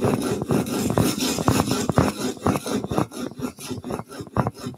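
Steel chisel bevel, clamped in a roller honing guide, scraped rapidly back and forth on coarse 60-grit abrasive sheet on glass: a run of quick rasping strokes, softer in the second half. The coarse abrasive is grinding the primary bevel, cutting the metal down to remove chips in the edge.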